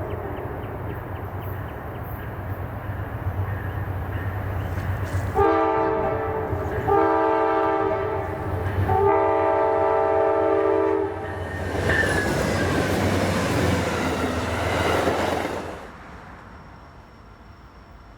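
Nathan K5LA five-chime locomotive horn sounding three chord blasts, each about one and a half to two seconds long, the last the longest, over a steady low locomotive rumble. The train then passes with a rush of wheel and rail noise that cuts off sharply about sixteen seconds in.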